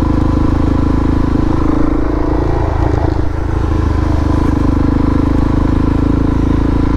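Harley-Davidson Dyna's V-twin engine running steadily under way, with a brief change in its low note about two to three seconds in.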